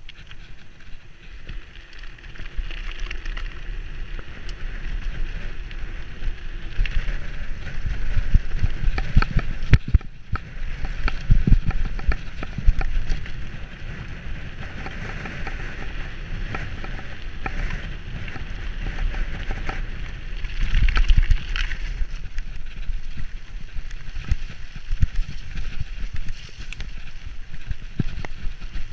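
Specialized Enduro mountain bike descending at speed: wind buffeting the action-camera microphone, tyres rumbling on wet tarmac and grass, and the bike rattling, with sharper knocks over rough stretches.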